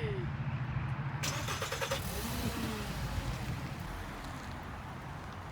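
Car sounds: a low rumble with a brief burst of rapid clicking about a second in, then a steady hiss that slowly fades.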